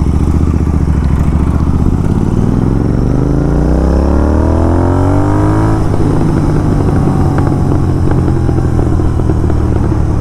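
Royal Enfield GT650's parallel-twin engine through a slip-on exhaust on stock ECU, revving up with a rising note from about two seconds in. The throttle snaps shut near six seconds and the engine runs on the overrun with exhaust crackles.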